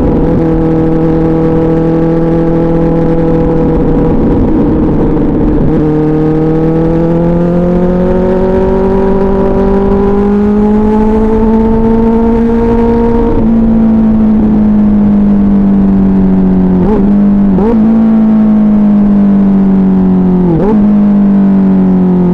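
2024 Kawasaki Ninja ZX-6R's 636 cc inline-four running through an SC Project exhaust while riding at moderate revs. The pitch climbs slowly, dips and climbs again at a shift about six seconds in, then sinks as the throttle eases off about halfway through, with a few quick dips near the end.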